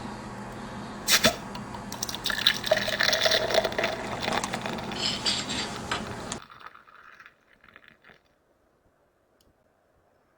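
Liquid running, with a sharp click about a second in and handling knocks, over a steady hum. It all cuts off suddenly about six and a half seconds in, leaving faint ticks.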